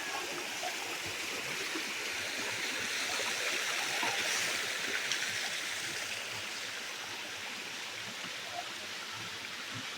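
Water of the Buatong Waterfall rushing over rock: a steady hiss that swells slightly around the middle.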